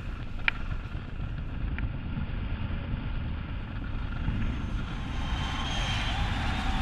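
Wind rumbling over the microphone of a skier's body-worn camera during a fast downhill run, with a steady hiss of the skis sliding over packed snow; a single click about half a second in.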